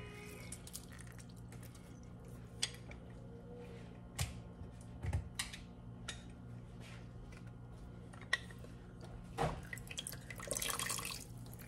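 Lemon juice dripping from a handheld lemon squeezer into a pan of melted butter: scattered drips and small splashes, a few sharper clicks of the squeezer, and a short stream of juice about ten seconds in, over a steady low hum.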